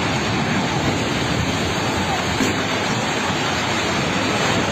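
Steady, loud roaring rush of noise from an apartment building collapsing in an earthquake, its debris falling into a thick dust cloud.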